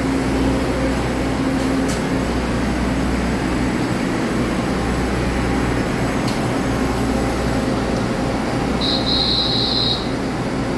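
A Taiwan Railway EMU3000 electric multiple unit standing at the platform, its onboard equipment running with a steady hum. A short high beep sounds about nine seconds in.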